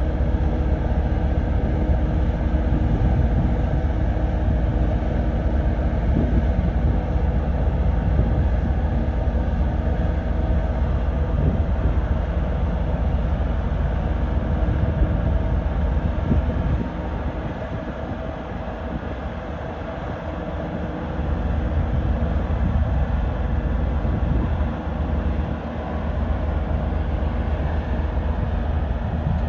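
Heavy diesel construction machinery running with a steady low rumble, easing off for a few seconds past the middle.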